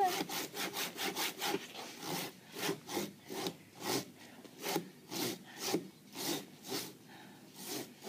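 Hand cutting into a palm tree trunk: a steady run of short strokes into the wood, about two a second.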